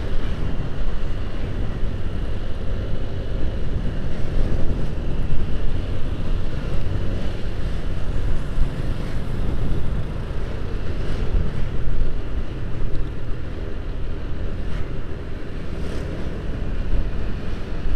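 Wind rushing steadily over the microphone of a moving motorcycle, with the motorcycle's engine running underneath.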